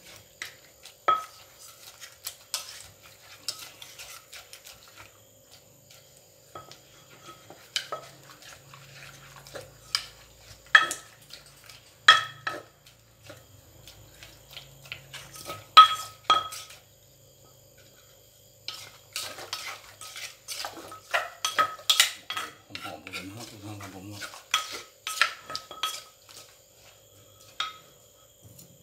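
Wooden pestle knocking against a clay mortar while a spoon scrapes and turns the mix, as the dressing for a Thai mango salad is pounded and stirred. Irregular knocks, some sharp with a short ring after them, with a dense run of quick strokes in the last third.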